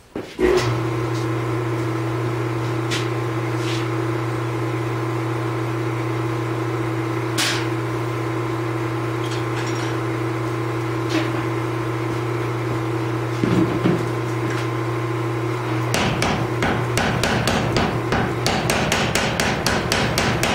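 Steady electric hum of running shop machinery. From about sixteen seconds in, a mechanical power hammer comes down on a glowing layered Damascus billet in a rapid run of evenly spaced blows, forge-welding the stack.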